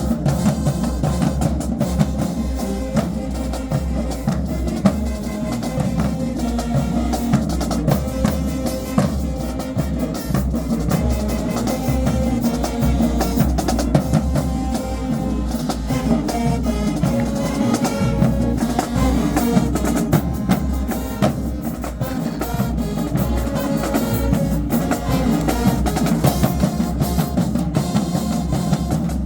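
High school marching band playing: held horn notes over a heavy drumline of bass drums and snare drums, keeping a steady beat.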